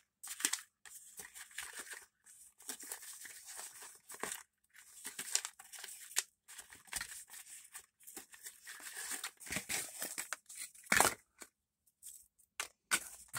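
Toy packaging crinkling and tearing as an action figure is worked free of its card insert by hand, an irregular run of crackles with one louder snap near the end.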